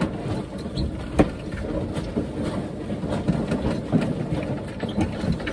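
A sailboat under way: a steady low rushing of wind and water, with one sharp knock about a second in and a few lighter clicks.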